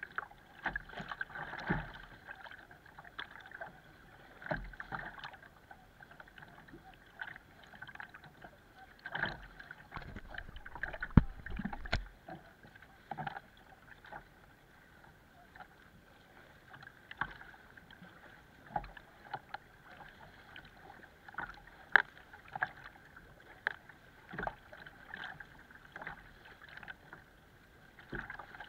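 Sea water lapping and slapping against a plastic sit-on-top kayak hull, heard close up through the boat, with irregular splashes and a few sharper knocks, the loudest about 11 seconds in.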